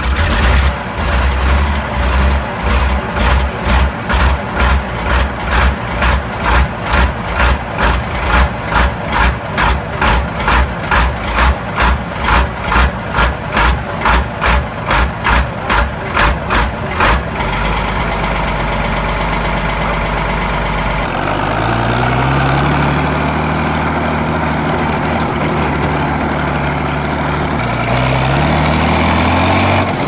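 Ford Super Six tractor's six-cylinder Ford TW-10 diesel running, first with an even pulsing about twice a second, then steadier. About two-thirds of the way in it switches to a tractor engine being driven, its pitch rising and falling with the throttle.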